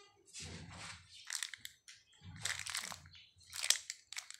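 Crunchy biscuit being chewed close to the phone's microphone: irregular bursts of crunching, mixed with handling noise from the phone.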